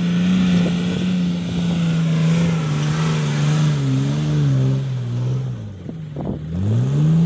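Off-road SUV's engine held at high revs as it climbs a soft sand track, easing off about five and a half seconds in, then a quick rev that rises and falls near the end.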